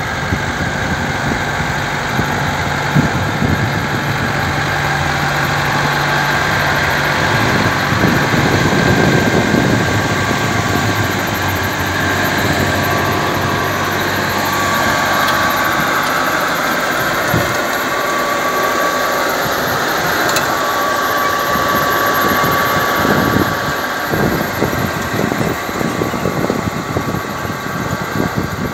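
Tractor engine running steadily while pulling a multi-row precision planter through the field, with a steady high whine over it. Gusty low rumbling in the second half.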